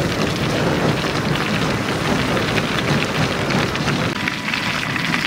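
Crushed rock pouring off the discharge conveyor of a Rubble Master RM J110 mobile jaw crusher onto a stockpile: a dense, steady clatter of falling stones over the machine's running drone.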